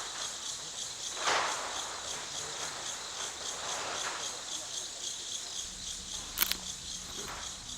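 Insects chirring in a steady, high, pulsing rhythm of about five pulses a second. A brief rustle about a second in and a sharp click near the end.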